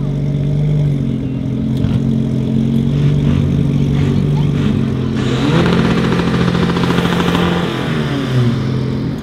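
Turbocharged Audi 2.5 TFSI inline-five engine in a tuned VW Golf R running at low revs as the car creeps forward, with small blips of throttle. Past the midpoint a louder, hissier stretch of engine sound rises and then falls in pitch over about two seconds.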